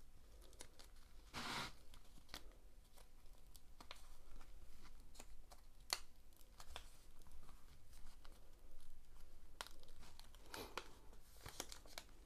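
Protective release paper being peeled back off the sticky glue of a diamond painting canvas, giving faint crackling, tearing noises. There is a short burst about a second and a half in and two more near the end, with small scattered clicks between them.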